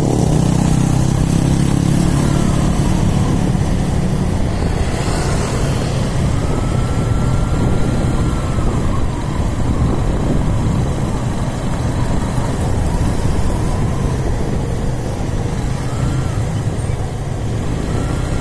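Motorcycle engine running under way through city traffic, with steady road and wind noise, heard from the rider's seat.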